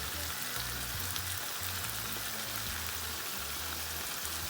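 Coconut cream and seasonings sizzling steadily in a pot on the stove, with a few faint crackles. Low background music runs underneath.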